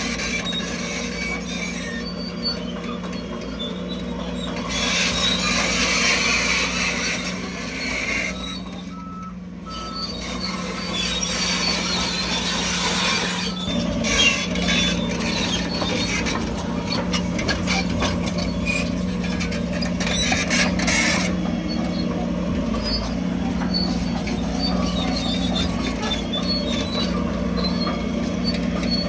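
Heavy earthmoving machinery running steadily: a diesel engine drone with high-pitched squeaking and metallic clatter over it, easing off briefly about nine seconds in.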